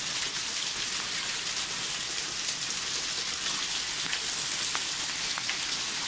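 Pea-size hail and heavy rain falling on wet pavement and brick: a steady dense hiss, with a few sharp ticks of ice pellets striking in the second half.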